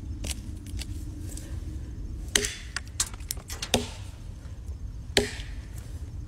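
An axe chopping into a fallen tree's wood: three solid strikes roughly one and a half seconds apart, with a lighter knock near the start and a few small knocks between.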